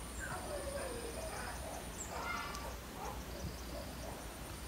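Newborn puppies squeaking and whining: a string of short cries that bend up and down in pitch, repeated every second or so.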